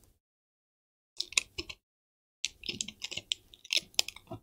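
Sharp clicks and light scraping from work on the back of a laptop's LCD screen panel to get at the backlight circuitry: a short cluster about a second in, then a denser run of clicks near the end.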